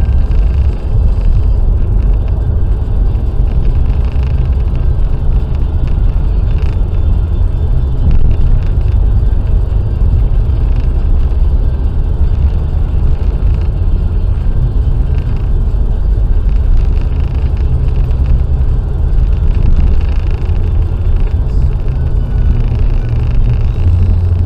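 Car driving at motorway speed: a steady, loud low rumble of engine and road noise.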